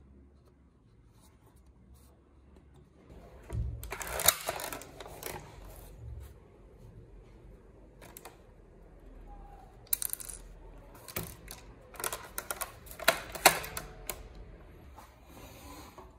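Handling of a plastic toy BB sniper rifle: rustling and knocks a few seconds in, then a run of sharp plastic clicks and knocks as a BB is loaded into the open receiver and the gun is readied.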